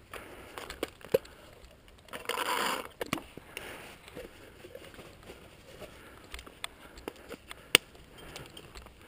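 Scattered sharp pops of paintball markers firing during a woodsball game, with two loud ones about a second in and near the end, amid rustling and knocking of the player's gear close to the microphone and a short hiss-like rustle about two seconds in.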